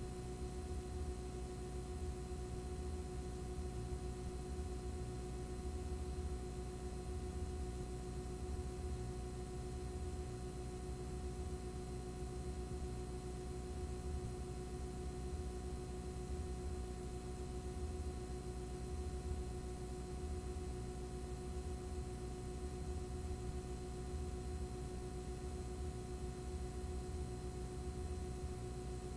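Steady electrical hum made up of several fixed tones over a constant hiss, unchanging throughout, with no other sound.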